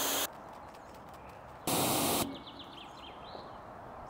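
Pressure washer with a foam cannon spraying, a loud hiss over the pump's steady hum, cutting off just after the start. A second half-second burst of spray comes about two seconds in, followed by a few short high chirps.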